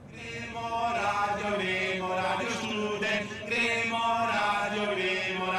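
Chanted vocals in long, held notes that bend and glide in pitch, fading in over the first second.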